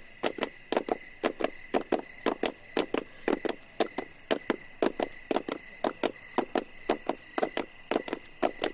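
Night insects trilling steadily, with a rapid, regular clicking about four times a second over it.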